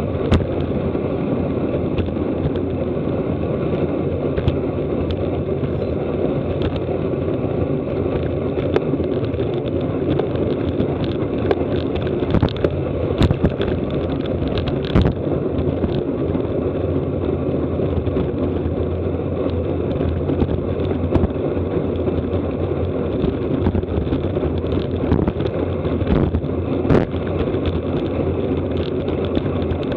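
Steady rush of wind and road noise from a road bicycle ridden at race speed, with scattered sharp clicks throughout.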